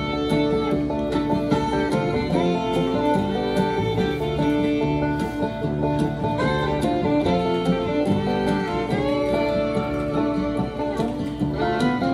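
Background music: an instrumental country or bluegrass-style tune with plucked guitar and banjo and a fiddle.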